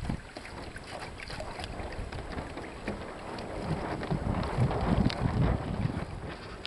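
Wind buffeting the microphone, with water splashing and lapping along the hull of an open canoe under sail; the splashing swells about two-thirds of the way through.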